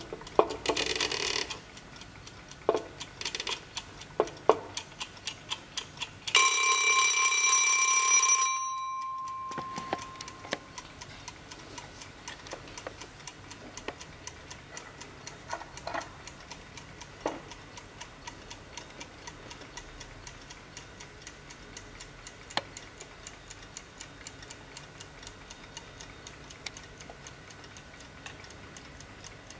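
Mauthe ceramic kitchen wall clock: its timer knob is turned by hand with a scraping, clicking sound and the timer ticks, then about six seconds in its timer bell rings for about two seconds and dies away. After that the clock movement ticks steadily, with a few louder clicks from handling.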